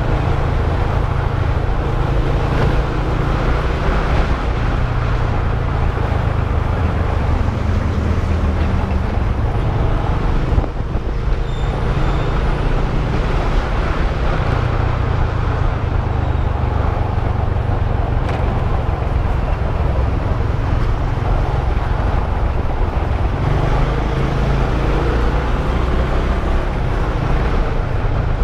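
Modenas GT128 motorcycle engine running steadily while riding through traffic, under a heavy wind rumble on the microphone.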